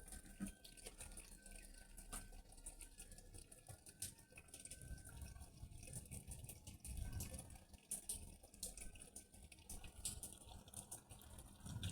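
Faint rain falling, with many small ticks of drops dripping.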